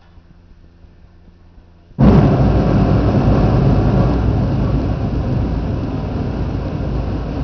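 A large massed school band comes in suddenly and very loudly about two seconds in, brass and percussion together in a dense rumbling wash with no clear notes.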